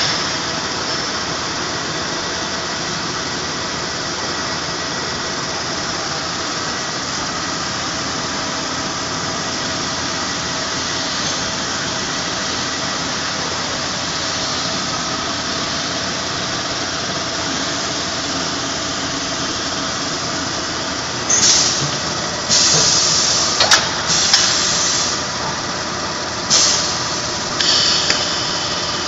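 Steady running noise of an automatic transformer corrugated-fin folding and welding machine. Several short hissing bursts come in the last third, with one sharp click among them.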